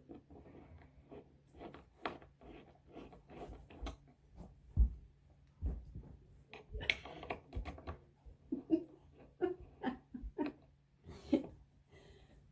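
Irregular knocks, clicks and rustling from handling and fitting couch frame parts, with a couple of heavier thuds a little after the middle.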